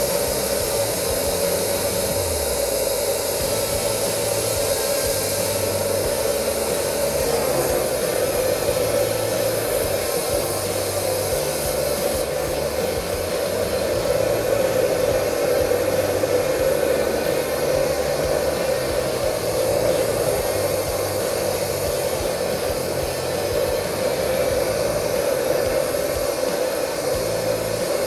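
Gas torch flame burning steadily, its hiss unbroken throughout, as it heats a rusted part held in a vise.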